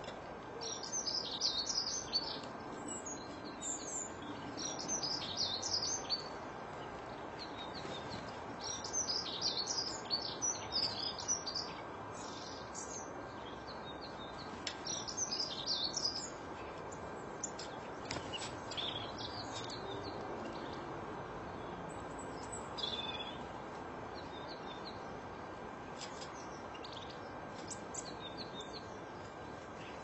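Small songbirds chirping and twittering in quick clusters of short, high calls, busiest in the first half and sparser towards the end, over a steady background hiss.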